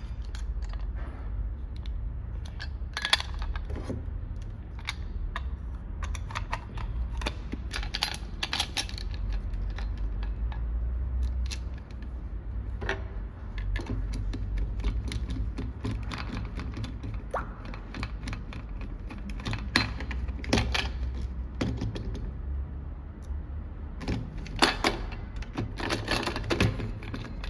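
Irregular clicks and knocks of small hard parts being handled, in clusters with short pauses between, over a steady low rumble.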